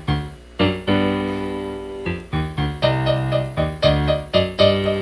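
Piano music: struck chords and single notes, one chord held for more than a second near the start, then a run of shorter notes.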